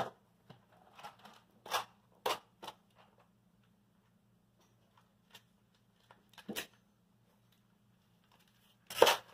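Handling noises while fishing-lure packages are searched through: scattered short rustles, clicks and light scrapes, a second or more apart, over a faint steady low hum.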